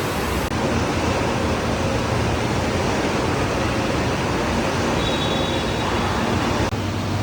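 Steady roar of an indoor waterpark, with rushing water and echoing crowd noise blended into one even din.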